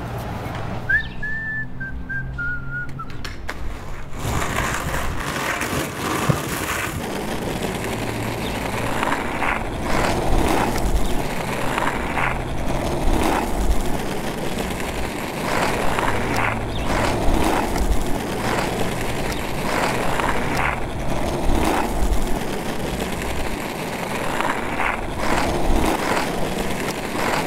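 A short whistle stepping down in pitch in the first few seconds. Then a skateboard's wheels roll steadily over asphalt, with frequent small knocks as they cross cracks and bumps.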